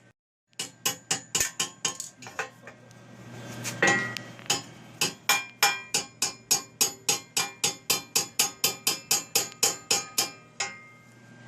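Metal hammer blows on steel, sharp and ringing, about four a second with a short pause a few seconds in, as the welded mini bike frame is worked on.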